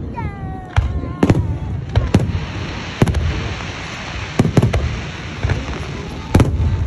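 Aerial fireworks going off in a display: a string of booming bursts at uneven intervals, several in quick succession, with a spell of crackling partway through.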